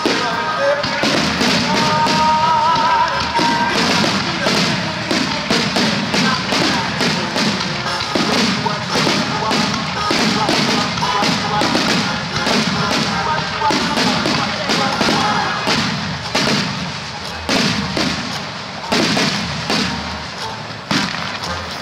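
Starmine barrage of aerial firework shells bursting in rapid succession: dozens of booms and cracks with hardly a gap between them.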